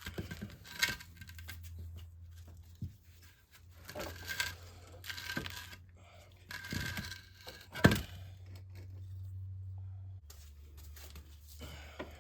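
Hand-work handling noises: rustling and scraping with a few sharp clicks and knocks of parts, the loudest a sharp click about eight seconds in, over a low steady hum.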